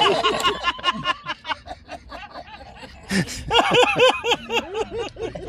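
A group of people laughing and chuckling at a joke, dying down and then breaking into a fresh burst of laughter about three and a half seconds in.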